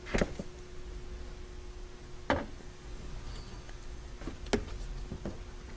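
A few separate sharp clicks and taps of parts being handled by hand, about four over the few seconds, over a faint steady hum.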